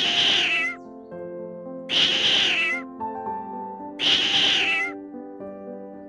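A domestic cat meowing three times, each meow just under a second long and about two seconds apart, over soft background music.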